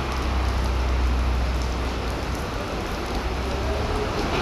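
Steady rain falling on paving, a continuous even hiss, with a low rumble underneath in the first couple of seconds.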